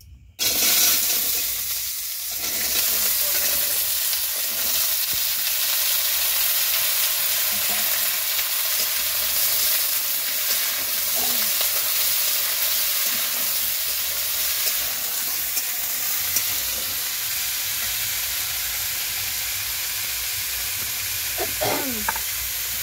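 Cut carrot, beetroot and potato pieces dropped into hot oil in a metal kadai, sizzling loudly from a sudden start about half a second in. They keep frying with a steady sizzle as they are stirred with a spatula.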